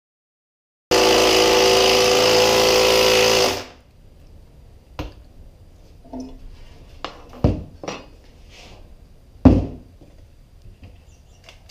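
A DeWalt cordless driver runs steadily for about three seconds, starting about a second in, driving a fastener into the cedar hive stand. Then come a few sharp wooden knocks as the cedar box is handled, the loudest near the end.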